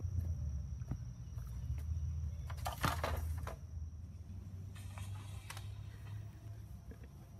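Long wooden sticks knocking and rustling as they are handled and leaned together into a stick fort, with a burst of clattering about three seconds in, over a low wind rumble on the microphone.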